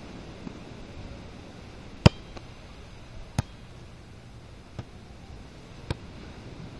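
A volleyball struck by players' hands during a beach volleyball rally: four sharp slaps, the first and loudest about two seconds in, then one roughly every second and a bit, over a steady hiss.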